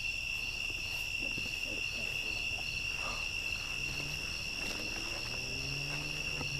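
Night insect chorus: crickets trilling steadily at two high pitches, with a softer insect call pulsing about twice a second between them.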